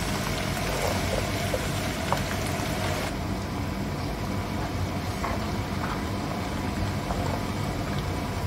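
Garlic, ginger and green chillies frying in plenty of hot oil: a steady sizzle of bubbling oil while a wooden spoon stirs, with a low steady hum underneath. The aromatics are being fried until they brown. The bright hiss turns duller about three seconds in.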